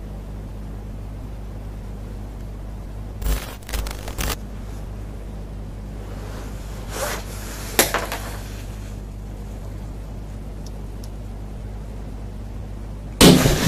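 Steady low electrical hum under a few brief rustling and scraping handling noises, with a loud sudden burst of noise near the end.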